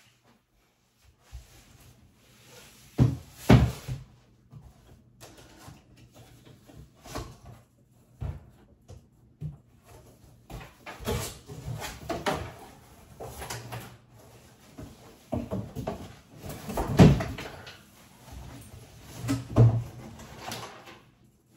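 Irregular knocks, bumps and clatters of things being handled and put away, with cupboard or drawer doors among them; several louder bangs stand out among softer shuffling.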